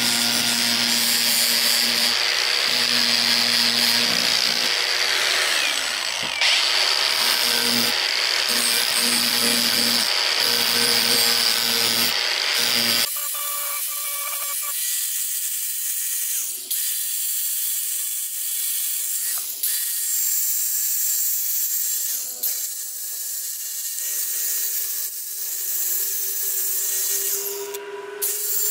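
Cordless angle grinder running and grinding a steel knife blank, a steady high whine over the motor's drone. About halfway through the drone stops abruptly, and a quieter high hiss carries on.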